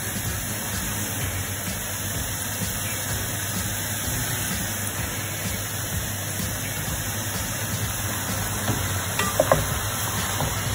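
Pork pieces sizzling in hot oil in a stainless steel pot: a steady frying hiss, with a few light knocks near the end.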